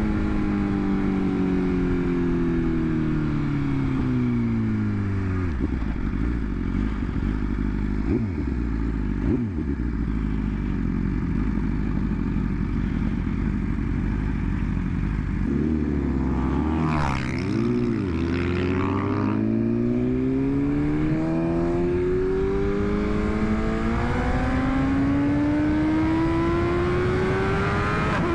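2021 BMW S1000RR inline-four engine running under the rider. The revs fall over the first several seconds and stay low through the middle, with a few short throttle blips. The pitch then climbs steadily as the bike accelerates toward the end.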